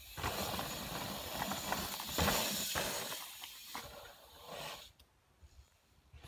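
Rushing noise of a mountain bike riding dirt jumps, tyres on packed dirt, loudest about two seconds in, then fading and dropping to near silence about five seconds in.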